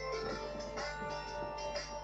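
Background instrumental music with held, changing notes.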